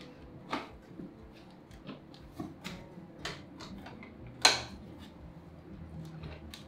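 Scattered clicks and knocks of a Tiffen Steadicam M1 sled and its G-70x support arm being handled as the sled is set into its docking stand and unhooked from the arm, with one loud clunk about halfway through.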